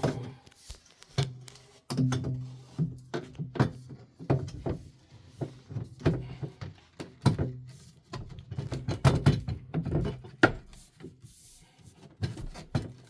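Irregular knocks and thuds from wooden boards and tools being handled during under-floor work, over a low steady hum.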